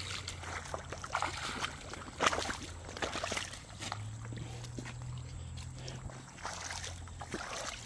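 Footsteps wading through shallow creek water in wading shoes: irregular splashes and sloshes, with a low steady hum underneath.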